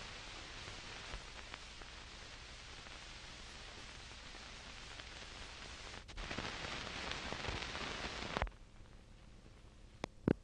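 Steady hiss of an old film soundtrack transfer, with no speech or music. It gets louder about six seconds in and cuts off suddenly a couple of seconds later. A fainter hiss follows, with a few clicks near the end.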